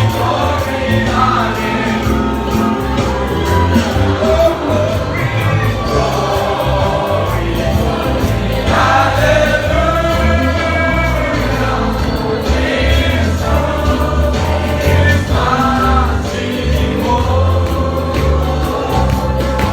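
Choir singing gospel praise music over instrumental backing with a steady bass line.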